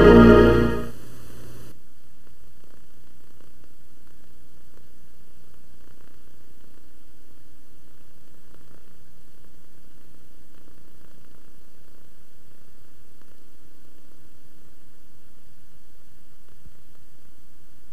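Closing music fades out about a second in, leaving a steady low hum and faint hiss of recording noise with no other sound.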